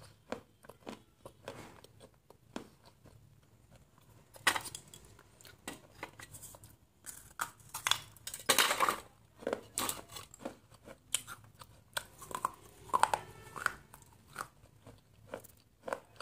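Biting and chewing of water-soaked terracotta clay pieces: irregular crisp crunches, with the loudest bites about four and a half seconds in, around eight to nine seconds, and near thirteen seconds.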